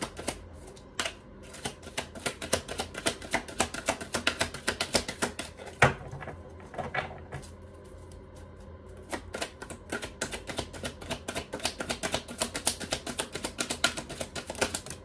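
Deck of Healing Cards oracle cards being shuffled by hand: rapid flurries of cards flicking and slapping against each other. There is a short lull about halfway through and one sharper knock about six seconds in.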